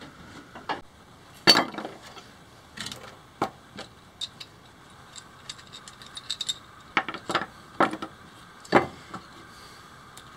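Scattered knocks and clinks of metal parts being handled: a cracked, rusty steel strap from a pedal boat's paddle-wheel bearing holder and its nuts and bolts. The loudest knock comes about a second and a half in, with a cluster of knocks near the end.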